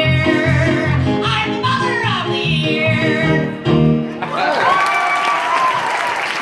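A woman sings the drawn-out final note of a comic song over rhythmic backing chords. The music ends about four seconds in, and audience applause and whoops follow.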